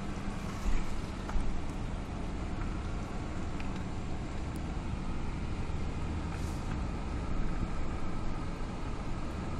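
Dodge Ram pickup driving slowly, its engine and tyres giving a steady low rumble heard from inside the cab.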